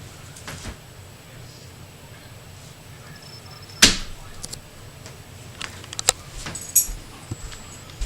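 Scattered knocks and clicks, the loudest about four seconds in and several more near the end, with a brief high metallic jingle just before the end.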